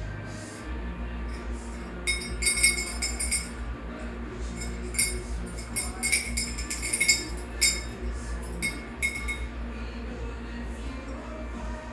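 Small metal bird-toy bell jingling in irregular bursts as an African grey parrot strikes and shakes it: a cluster of rings about two seconds in, another about six seconds in, and single rings between, over a steady low hum.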